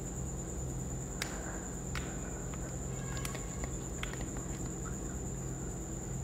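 Quiet room tone: a steady high-pitched whine over a low hum, with a few faint clicks and taps, the sharpest about a second in.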